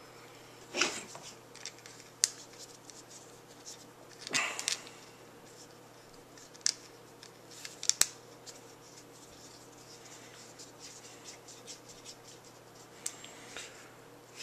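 Scattered small clicks and brief rustles of hands handling a Baofeng UV-3R handheld radio and its stubby antenna as the antenna is screwed on, with a sharp click about eight seconds in.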